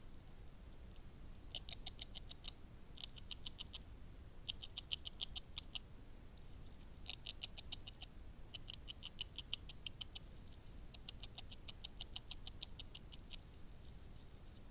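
Eurasian beaver gnawing on food: six runs of rapid, crisp ticks, about ten a second, each run lasting one to two seconds, with short pauses between.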